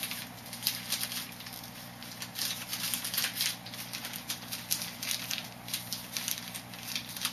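Plastic bag of confectioners' sugar crinkling and rustling in irregular crackles as it is handled and pulled open.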